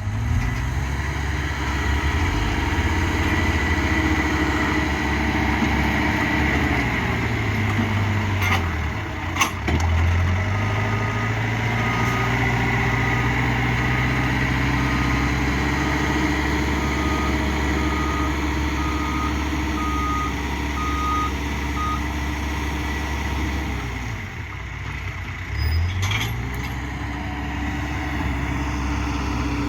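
Backhoe's diesel engine running, its pitch rising and falling as the machine is worked. A reversing alarm beeps about once a second from about a third of the way in to past the middle. A few sharp knocks are heard along the way.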